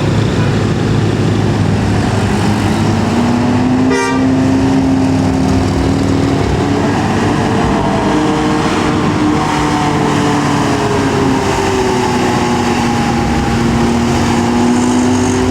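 Tour bus engine pulling up a steep climb: a steady drone whose pitch slowly rises and falls, with one sharp click about four seconds in.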